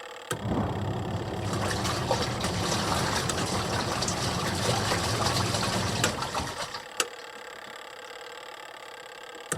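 Washing machine running: a low motor hum with water rushing through it, which stops about two thirds of the way in with a sharp click, leaving a quieter steady hum, then starts again at the very end.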